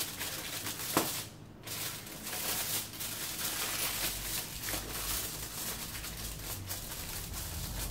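Aluminium foil crinkling as hands press and crimp it around the rim of a baking pan, a run of small crackles with a short lull about a second in.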